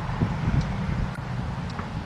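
Wind buffeting the microphone outdoors: a steady low rumble with a few faint ticks.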